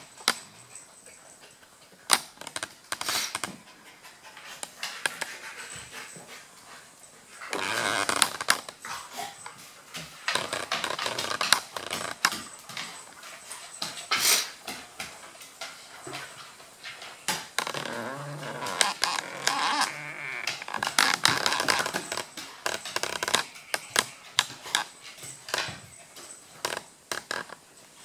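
A Maltese and a Golden Retriever playing rough on a wooden floor: scuffling and many sharp clicks, with stretches of louder tussling and the odd dog sound.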